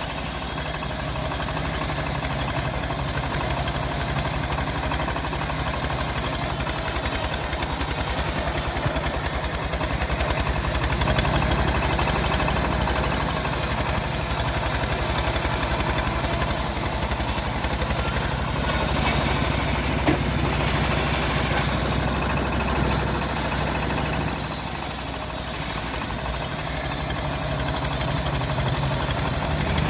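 Engine powering a homemade bandsaw mill, running steadily with an even, pulsing low hum.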